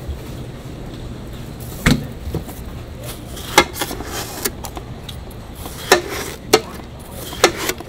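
Kitchen knife cutting a half watermelon into wedges on a plastic tray, the blade knocking sharply on the tray as each cut goes through; about five knocks, the loudest about two seconds in.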